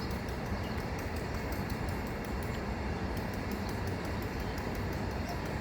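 Steady low rumble of outdoor background noise, even throughout, with no clear bird call standing out.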